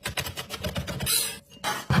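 Kitchen prep sounds: a quick run of sharp knocks and clicks, like utensils or a knife working on a board, with a brief hiss about a second in and heavier knocks near the end.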